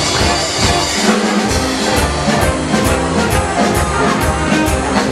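Music with brass and drums, driven by a steady beat.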